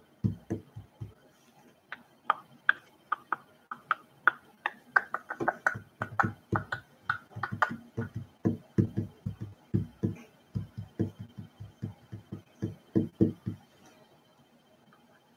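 Quick, uneven taps and low thumps, several a second, stopping near the end.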